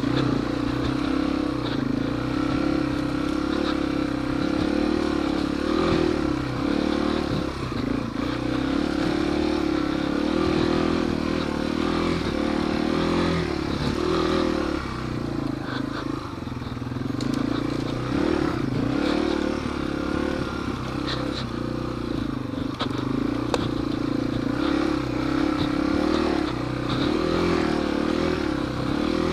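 Yamaha TW200's single-cylinder four-stroke engine running while the bike is ridden over rough dirt ground, its pitch rising and falling with the throttle, with occasional knocks and rattles.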